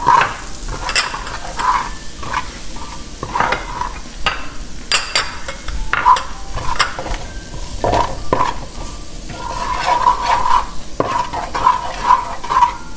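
Wooden spoon stirring and scraping minced garlic, butter and dry seasoning around a nonstick frying pan in a run of short, irregular strokes, with the butter and garlic frying underneath.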